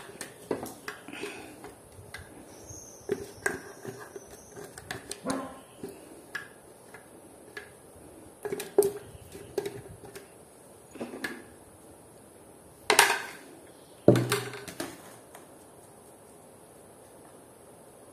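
Light clinks and taps of a spatula against a plastic blender jug and a metal baking tray as batter is poured and scraped into the tray, with two louder knocks about two-thirds of the way through.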